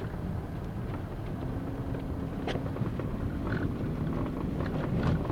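Car driving, heard from inside: a steady low rumble of engine and road, with a few faint ticks and knocks.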